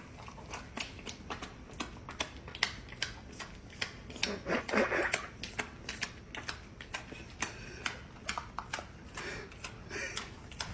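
A dog's claws clicking on a hardwood floor as it shifts about on its feet: a quiet, irregular run of sharp taps. There is a short breathy sound about four to five seconds in.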